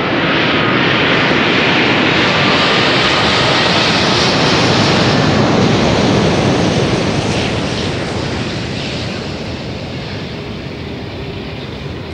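Jet roar from a Thai Airways Airbus A380's four Rolls-Royce Trent 900 engines on final approach. It builds to a peak as the aircraft passes close by, then eases off in the last few seconds, with a faint whine that slides slightly downward early on.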